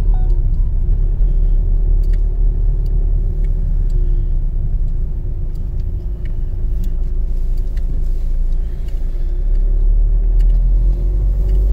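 Car cabin noise while driving slowly: a steady low engine and road rumble with a faint engine hum. The engine picks up a little near the end, and a few light ticks are scattered through it.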